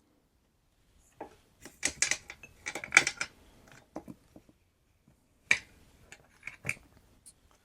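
Small hard parts and tools clicking and clinking on a workbench as they are handled, in two flurries of sharp taps, the first about a second in and the second about five and a half seconds in.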